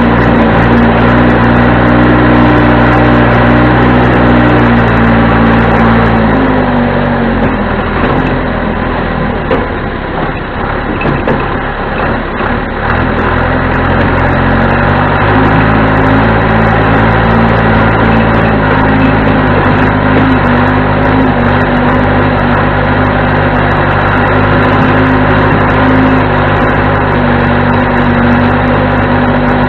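1987 John Deere 210C backhoe loader's four-cylinder diesel engine running loud and steady. About six seconds in its pitch drops and the sound turns rough for several seconds, then the engine climbs back up and runs steady again.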